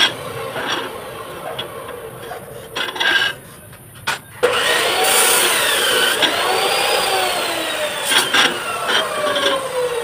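Steel rebar clinking and knocking as it is worked on a bending jig. Partway through, a machine whine starts, wavers up and down in pitch, then slowly falls.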